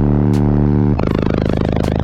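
Loud, bass-heavy music with held low notes that change to a new pitch about a second in.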